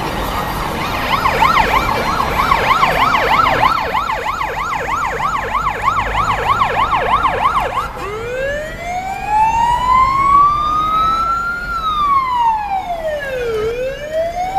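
Siren of an unmarked police car on an emergency run: a fast yelp at about three or four warbles a second, which switches about eight seconds in to a slow wail that rises, falls and rises again.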